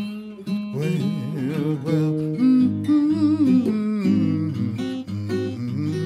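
Blues acoustic guitar playing an instrumental passage of plucked notes, many of them bending in pitch.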